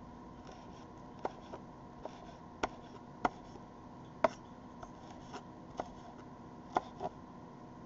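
Kitchen knife chopping green chili peppers on a wooden cutting board: about a dozen irregular, sharp knocks of the blade on the board, one or two a second.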